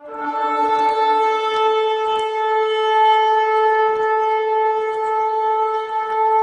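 Shofar blown in one long, steady blast. It starts on a brief lower note and rises almost at once to a held higher tone.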